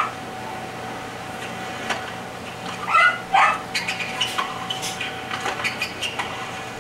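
A small dog giving two short high yelps about half a second apart, followed by a run of light clicks and taps.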